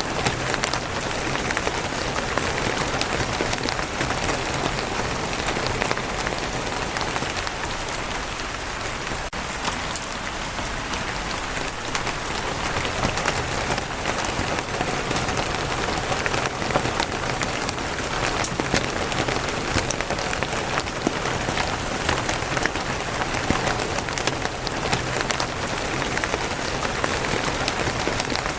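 Steady rain falling on a wooden roof, a dense patter of drops.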